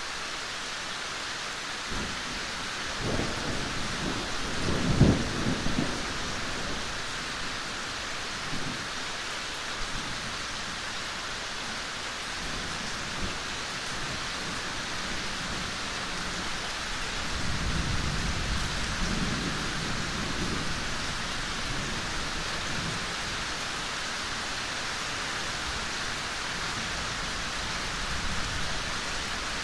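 Steady gentle rain falling in a forest, with low rumbles of thunder twice: one about three to six seconds in that peaks sharply near five seconds, and a longer, softer one around eighteen seconds in.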